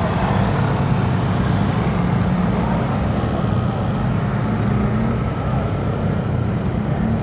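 Motorcycle riding in traffic: a steady low rumble of wind on the microphone with the bike's engine running underneath.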